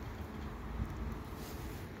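Faint, steady outdoor background noise with a low rumble and no distinct events.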